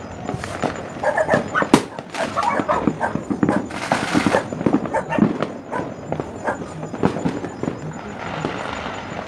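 Fireworks and firecrackers popping and banging in quick, irregular succession, with a dog barking among the bangs and a burst of hiss about four seconds in.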